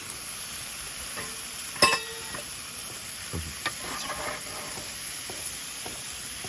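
Beef tongue with salted green onion sizzling on a small iron griddle plate over a wood fire, a steady hiss. About two seconds in comes one sharp, ringing metal clink, and a few lighter clicks follow a little later.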